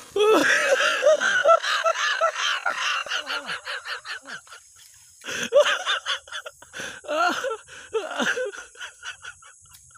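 A man laughing hard in quick repeated 'ha' pulses with gasping breaths, a long burst at the start and shorter bursts about halfway and near the end.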